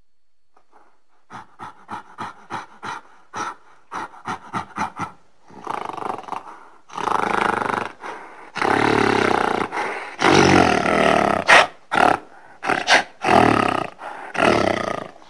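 Gorilla calling: a run of short hoots that quickens over about four seconds, building into long, loud roaring calls.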